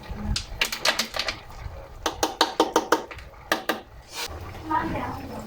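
Open firewood cooking fire crackling, burning fiercely, with a quick irregular run of sharp pops and snaps that thins out after about four seconds.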